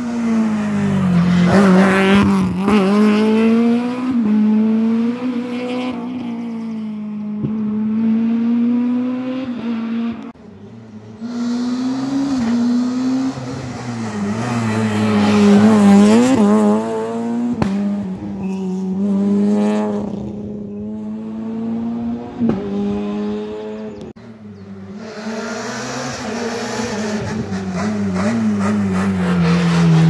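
Rally car engines revving hard and changing gear as the cars pass one after another at full speed, about three passes in all, each rising and falling. A few sharp pops are heard between gear changes.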